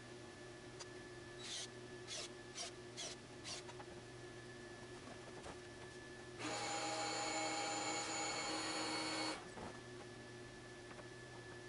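Five short scraping strokes on wood. A few seconds later a power tool runs steadily for about three seconds, a hissing whir with several steady whining tones, and cuts off suddenly.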